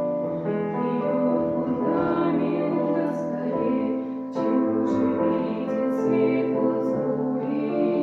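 Music: a slow song with held sung notes over piano accompaniment.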